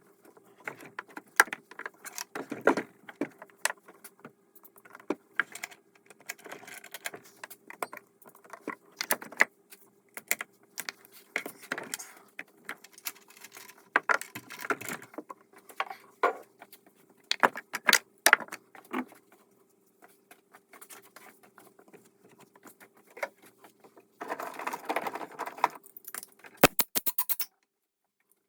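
Metal tools and engine parts clinking and rattling in irregular clicks and short jangles as the intake manifold of a BMW M57 diesel engine is taken apart, with a quick run of fine clicks near the end.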